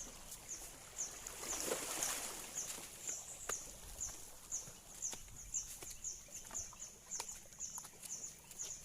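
Short high chirps repeating evenly, about two or three a second, from a small chirping animal. A brief rush of noise swells and fades around two seconds in, and a few sharp clicks are scattered through.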